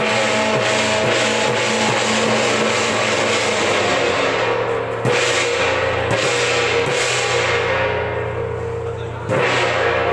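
Loud temple procession music: drums and cymbals over sustained pitched wind-instrument tones, with heavy strikes about five seconds in and again near the end.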